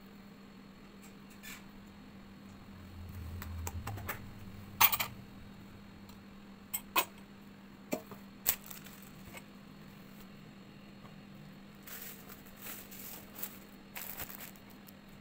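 Kitchen handling sounds: short clinks and knocks of a metal spoon and stainless steel trays as bread slices are buttered and laid down, the sharpest about five seconds in, with softer clatter near the end. A faint steady low hum runs underneath.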